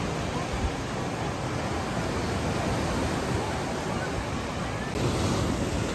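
Steady rushing rumble of a train in motion, heard from inside the carriage. It gets a little louder and brighter about five seconds in.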